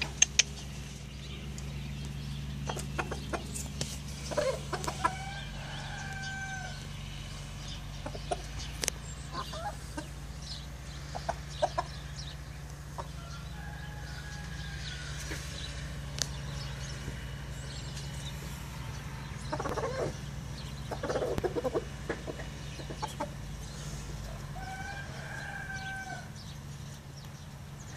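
Domestic chickens clucking as they feed, with a few drawn-out calls and scattered short taps over a steady low hum.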